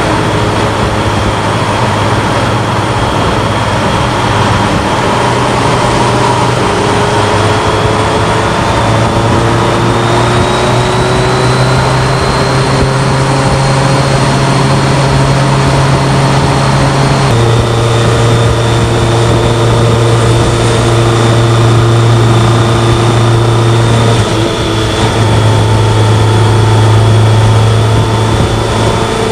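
BMW K1100LT's inline-four engine running at steady cruising speed under wind and road noise. The engine note climbs slowly over several seconds, shifts abruptly about two-thirds of the way through, and dips briefly near the end.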